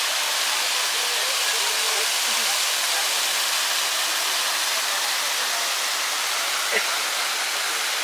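The Bad Urach waterfall (Uracher Wasserfall) pouring down a moss-covered rock face, heard close up as a steady rush of falling and splashing water.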